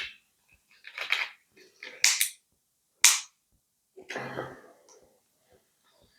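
A series of sharp, bright cracks about a second apart, then a duller, longer knock.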